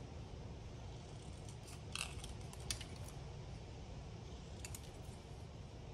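A few small, sharp clicks from hands handling small paper craft pieces at a desk: two about two seconds in and a few fainter ones later, over a low steady background hum.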